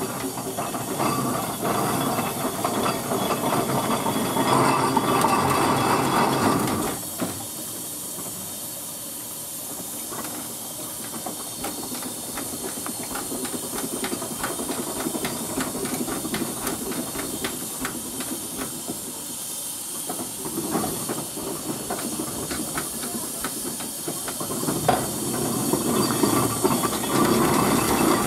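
Steam traction engine on the move: a loud hiss of steam for the first several seconds, then a quieter stretch of quick ticking and clanking from the running engine, before the hissing swells again near the end, with one sharp knock.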